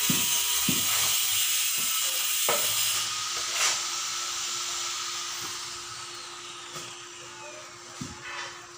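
A steady hiss that fades away over several seconds, with a faint hum under it and a few light knocks and clicks.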